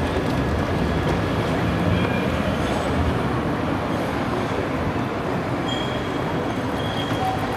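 Siemens Avenio low-floor tram running away along street track, a steady rumble of wheels and traction gear with a few faint high whines, easing slightly as it moves off.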